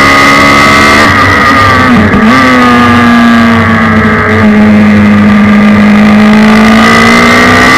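Suzuki Hayabusa inline-four motorcycle engine in a race car, heard onboard at high revs and very loud. Its pitch dips briefly about two seconds in, then the engine pulls steadily with a small step in pitch about four seconds in.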